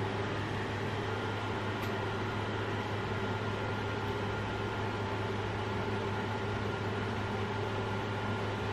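Steady mechanical hum: a low drone with a few faint steady higher tones over a light hiss.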